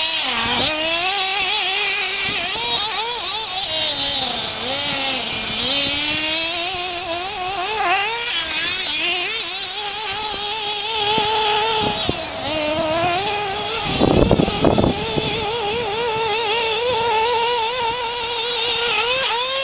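Nitro RC buggy's small two-stroke glow engine running at high revs, its pitch rising and falling constantly as the throttle is worked; the engine has not yet been tuned. A short loud rush of noise cuts in about fourteen seconds in.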